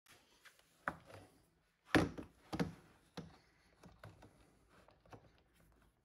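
A handful of knocks and thuds as a plywood board and a Festool DF 700 Domino joiner are handled and set in place on a wooden workbench. The loudest knock comes about two seconds in. The joiner's motor is not running.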